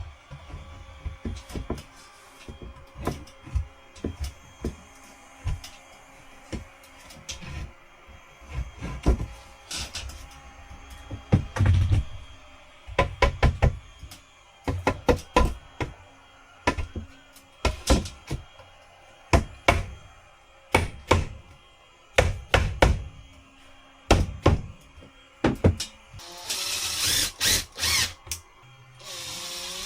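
Irregular knocks and thuds of wooden ceiling panels being handled and tapped into place, some sharp and loud, with a short burst of noise near the end.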